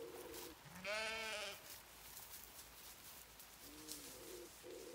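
A Zwartbles sheep bleats once, about a second in: a single loud, wavering bleat lasting just under a second.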